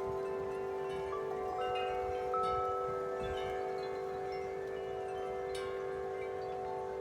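Wind chimes ringing in the wind: a low tone rings on steadily while higher tubes are struck every second or so and ring out.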